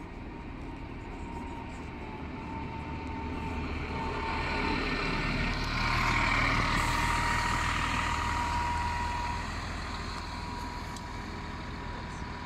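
Solaris Urbino 18 articulated city bus with a DAF diesel engine pulling away and driving past close by. The engine sound grows louder to a peak about six seconds in, then fades as the bus moves off.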